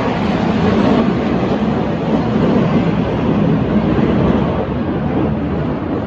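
Engine noise of fighter jets flying past overhead, a loud steady rush that eases slightly near the end.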